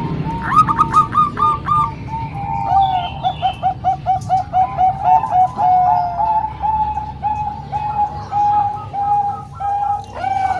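Several zebra doves (perkutut), Bangkok and local birds, cooing over one another in quick series of short, repeated coo notes that overlap throughout.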